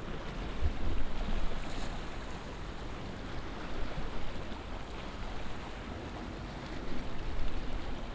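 Wind buffeting the microphone in gusts over a steady rushing background noise, with louder gusts about a second in and near the end.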